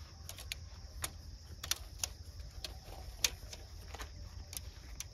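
Crickets and other insects chirring steadily, with irregular sharp clicks and taps, about ten of them, the loudest a little past three seconds in.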